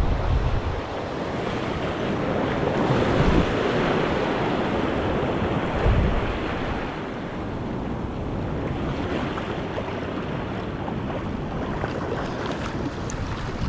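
Small waves washing up onto a sandy beach in a steady wash of surf, swelling louder a few seconds in, with wind buffeting the microphone in low thumps.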